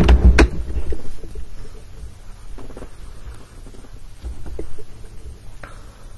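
Handling noise on the webcam or laptop microphone: a loud low rumble with two sharp knocks in the first half second, then quieter rumbling and a few faint taps.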